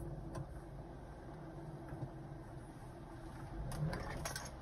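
Low, steady engine and road rumble heard inside a car's cabin as it drives slowly, with a few light clicks near the end.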